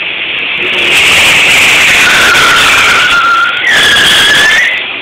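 Cars launching hard from a standing start, engines at high revs and tyres squealing, very loud. The squeal breaks off briefly about three and a half seconds in, comes back, then eases near the end.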